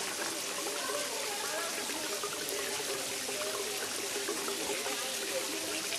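Shallow water trickling and gurgling steadily as it runs in a thin sheet over a wet sandstone ledge into a small pool.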